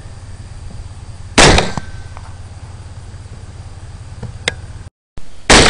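Two AR-15 rifle shots, one about a second and a half in and one near the end, each a sharp crack with a short echo. Under them runs the steady low hum of an idling vehicle engine.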